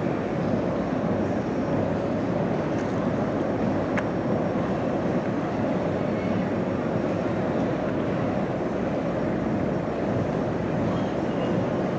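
Steady rumbling noise of a metro train running, even in level throughout, with a single short click about four seconds in.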